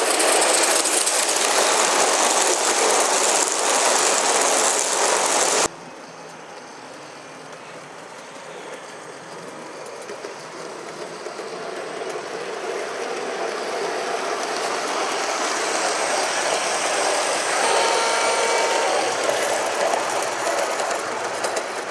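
Gauge 1 live-steam model locomotive running close by with a loud, steady hiss that cuts off suddenly about six seconds in. A model train on the garden railway then comes in quietly and grows steadily louder as it approaches and passes.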